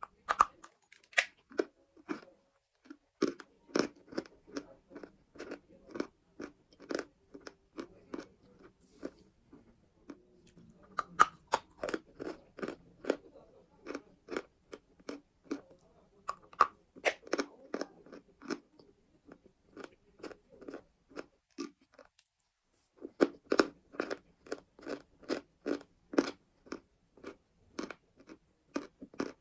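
Close-up crunching and chewing of hard, brittle chalk: quick crisp crunches, about two or three a second, in runs with a couple of short pauses.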